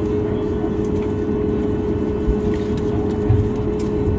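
Steady cabin hum inside a Boeing 737 MAX 8 parked at the stand: a constant mid-pitched tone over a low rumble, with a few faint clicks and a soft thump about three seconds in.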